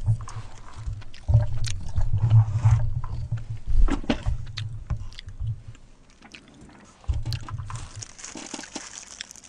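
Microphone being handled and moved on its boom arm: uneven low rumbling bumps and a few knocks through the first five and a half seconds, another bump a little after seven seconds. Near the end, a brief crinkling rustle of a plastic food glove.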